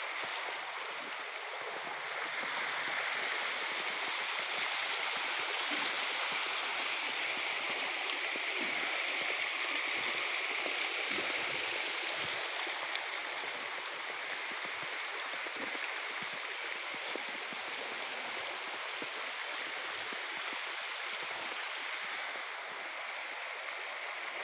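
Small creek running, a steady rush of water.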